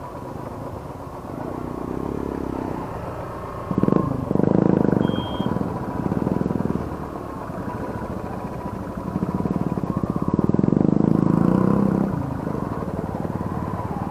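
Motorcycle engine running under way, with the throttle opened in louder surges about four seconds in, again around six seconds, and for a longer stretch from about nine and a half to twelve seconds.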